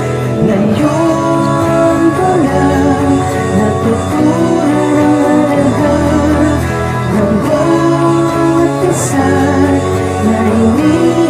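A song plays: a voice sings a melody over a guitar-led band accompaniment.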